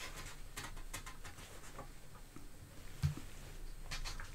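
Loose sheets of paper rustling and crackling as they are leafed through on a desk, with a brief thump about three seconds in.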